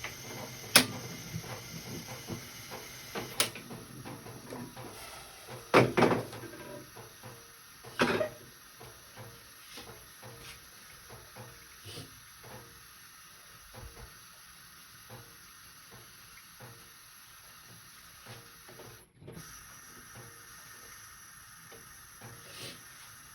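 Kitchen handling sounds: a sharp click near the start, two louder knocks about six and eight seconds in, then a run of light taps and clicks over a faint steady hiss.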